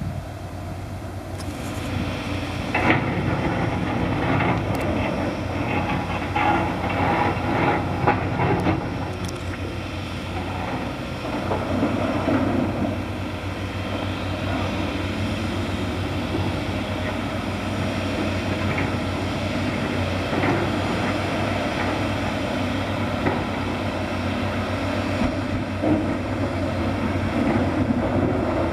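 Heavy diesel construction machinery (crane and excavator) running with a steady engine drone, and repeated metallic clanks and knocks of rock and steel being handled, thickest in the first ten seconds.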